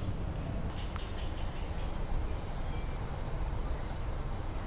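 Quiet outdoor background: a steady low rumble with a few faint bird chirps about a second in.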